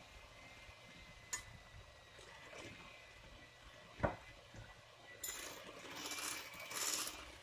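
Electric hand mixer beating pancake batter in a glass bowl: a faint steady motor whine, with the beaters knocking sharply against the glass twice, the second knock the loudest. A louder swishing of the batter follows near the end.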